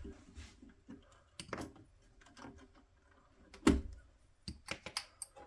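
Scattered clicks and knocks from handling a vacuum-tube tester between tests, with the loudest knock a bit under four seconds in and a quick run of clicks soon after.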